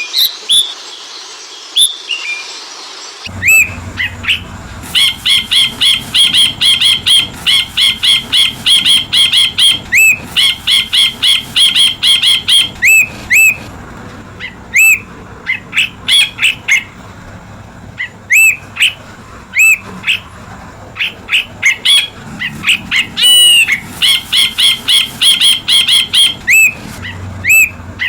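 Ashy bulbul calling: fast runs of sharp, ringing chirps, several a second, broken by single hooked notes and short pauses.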